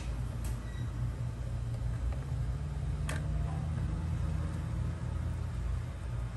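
A low steady rumble, with a sharp click about three seconds in, while motor oil pours from a plastic jug into a cut-off water bottle used as a funnel in the engine's oil filler.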